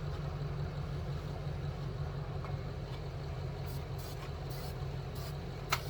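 1958 Fordson Major's four-cylinder diesel engine running steadily with an even low throb, coming back to life after decades standing. A few short ticks are heard in the second half, then one sharp click just before the end.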